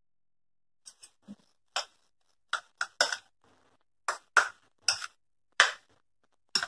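A spoon stirring fried sweet corn kernels in a paper bowl: a string of short, sharp scrapes, irregularly spaced, starting about a second in.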